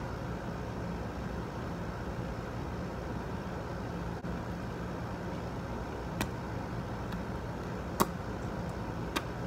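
Steady low background rumble with a faint hum, and a few sharp clicks near the end. The loudest click comes about eight seconds in, a lip smack as freshly glossed lips are pressed together.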